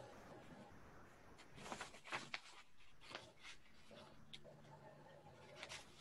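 Faint rustling of paper sheets being handled: a few short rustles about two seconds in, around three seconds in and again near the end, over quiet room tone.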